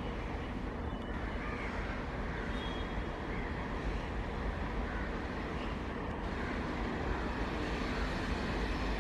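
Twin ALCO diesel locomotives running as they approach at low speed, a steady low engine rumble that grows slightly louder near the end.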